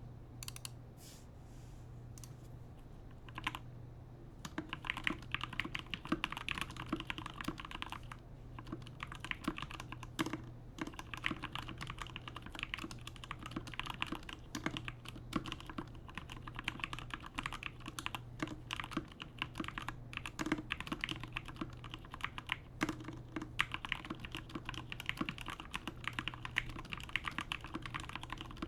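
Typing on a GMMK Compact mechanical keyboard with lubed Cherry MX Black Hyperglide linear switches and Razer PBT keycaps: fast, uneven key strokes with a few brief pauses. The typing gets going a few seconds in, after some scattered presses.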